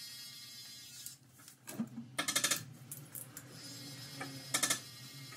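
Barber's scissors snipping hair: two quick runs of metallic clicks, about two seconds in and again near the end, over a steady low hum.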